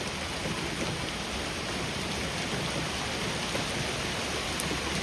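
Rain falling steadily, an even hiss of drops on the ground and surfaces.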